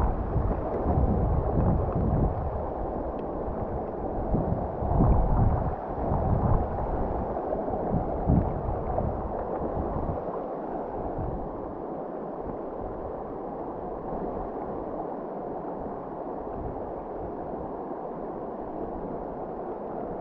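River current rushing steadily over a shallow cobble riffle. Low buffeting rumbles, wind on the microphone, come and go over the first half and die away about ten seconds in.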